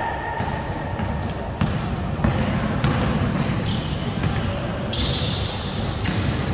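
Basketball being dribbled and bounced on an indoor court during play, a run of irregular bounces and footfalls that echo in a large gym hall.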